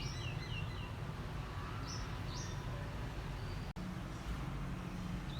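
Small birds chirping in short calls over a steady low background rumble: a quick run of falling chirps at the start, two single chirps about two seconds in, and one rising chirp at the end.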